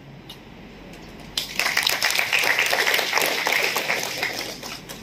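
Audience applauding: the clapping starts about a second and a half in and dies away near the end.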